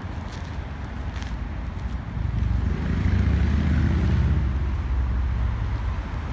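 A road vehicle driving past: its low rumble swells about two seconds in and fades toward the end.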